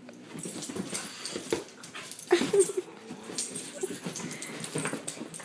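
Puppy giving short, irregular whimpers while play-fighting with a cat, with light scuffling between them.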